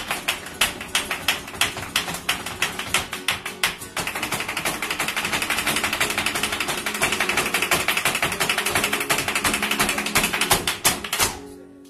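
Flamenco footwork (zapateado): the dancer's shoes strike the wooden stage over flamenco guitar in an alegrías. For about four seconds the stamps come separately, a few a second; then they run together into a fast, continuous drumming that fades out near the end.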